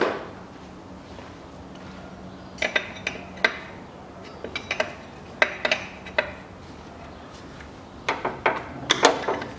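Metal hand tool clinking and tapping against metal fittings in the engine bay while a vacuum hose is being disconnected, in three clusters of sharp clicks, the loudest near the end.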